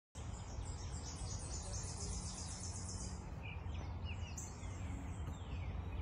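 Woodland birdsong: a fast, high-pitched trill for about the first three seconds, then scattered chirps and several downward-sliding whistles. A low steady rumble runs underneath.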